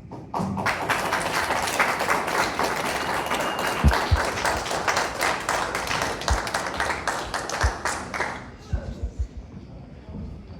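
Audience applauding, starting about half a second in and dying away after about eight seconds, with a few dull thumps among the clapping.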